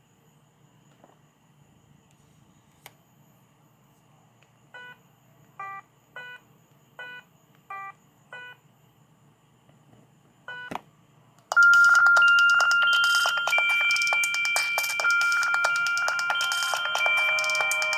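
ZTE Z222 mobile phone giving a string of short key beeps and a click, then, about eleven seconds in, a ringtone starts playing loudly from its speaker: an electronic melody of held, overlapping tones.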